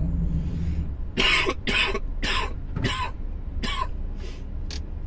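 A man coughing and clearing his throat about seven times in a row, short rough bursts from a throat hoarse enough that his voice is almost gone. Under it runs the steady low drone of the truck cab.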